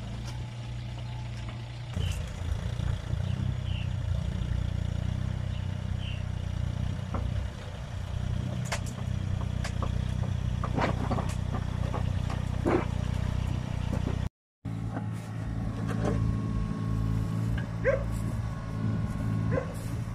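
Mini excavator's diesel engine running and growing louder as it drives down metal loading ramps, with scattered sharp knocks and clanks as it moves. It cuts out briefly, then the engine runs on steadily.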